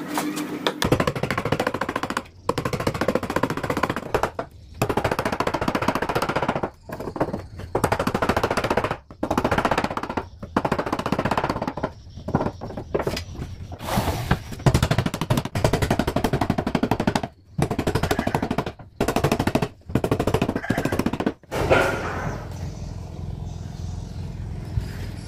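Machete chopping into a hardwood board: rapid strokes in runs of a second or two with brief pauses, stopping about 22 seconds in.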